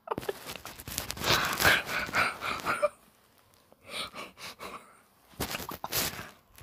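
One person's breathy, wheezing laughter: a long stretch of about three seconds, then after a pause two shorter bursts.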